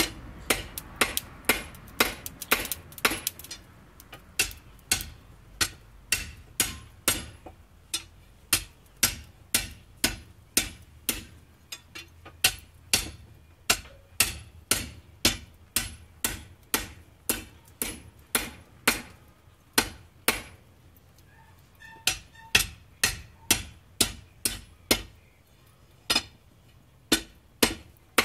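Hand hammer striking a workpiece on an anvil in a steady rhythm of about two blows a second, each blow a sharp metallic clang with a short ring, broken by a few brief pauses.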